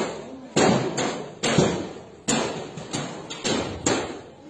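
A motorbike being smashed: a run of hard blows on its metal and plastic body, roughly one every three-quarters of a second, each ringing briefly.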